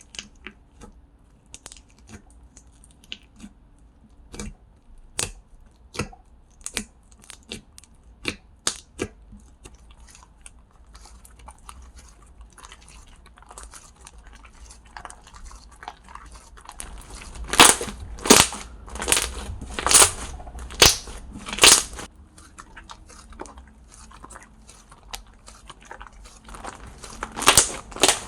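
Slime being poked, pressed and stretched by hand close to the microphone, giving sharp sticky clicks and air-bubble pops. The pops are sparse at first, come louder and faster a little past the middle, and bunch up again near the end.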